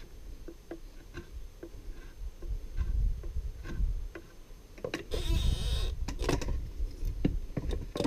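Draw knife shaving the end of an ash hammer handle clamped in a wooden shave horse: a run of light, short cuts, then a longer scraping stroke about five seconds in. Several knocks and clunks of wood on wood follow as the handle is shifted in the horse.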